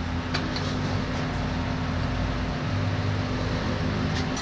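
A motor running with a steady low hum, with a light click about half a second in and another near the end.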